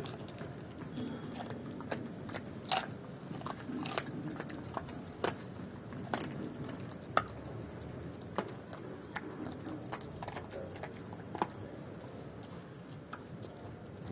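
German Shepherd chewing and crunching raw chicken feet, with irregular sharp cracks of bone between its teeth; two of them, about three and about seven seconds in, are the loudest.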